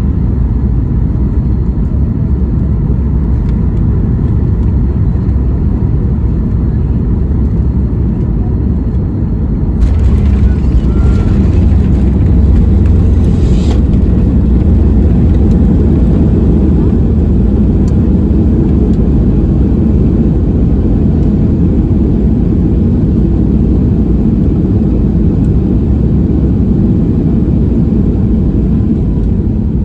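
Steady low cabin rumble inside a Boeing 737 MAX 8, heard from a window seat. About ten seconds in, it swells for roughly four seconds into a louder rush with added hiss, then settles back to the steady rumble.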